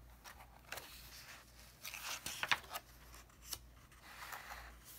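The page of a picture book being turned by hand: paper rustling and swishing in several short strokes, loudest about two seconds in.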